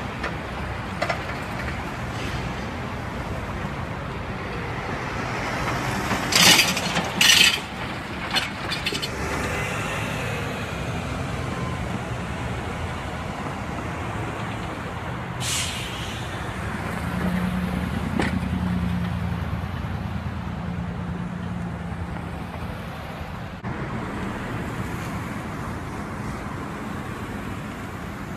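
City street traffic at an intersection: cars and vans passing with engines running and tyre noise. Two short, sharp hisses about six and seven seconds in are the loudest sounds, with a weaker one near the middle, and a deeper engine hum rises for several seconds later on.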